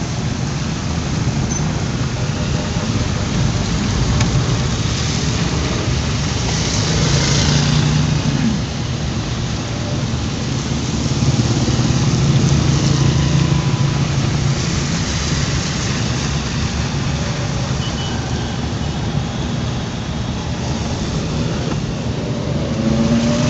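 Rain and tyres on a wet road with a low car engine hum, heard from inside the car. The noise swells twice, about seven seconds in and again around twelve seconds.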